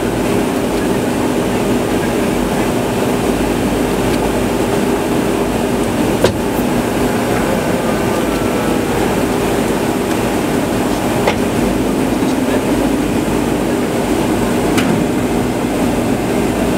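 Steady rush of airflow and engine drone inside a KC-135 Stratotanker's boom operator pod in flight, with two steady low hum tones throughout. A few sharp clicks come at roughly one-, two- and three-quarters of the way through.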